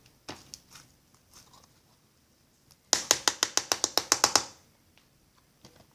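A quick run of about fifteen sharp clicks over a second and a half, with a few faint isolated clicks before it.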